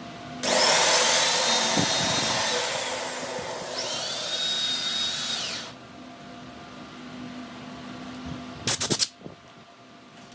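Handheld electric power tool running at full speed in two bursts for about five seconds in all, with a high motor whine that winds down as it is let off. Near the end comes a quick rattle of three or four sharp knocks, over a steady low machine hum.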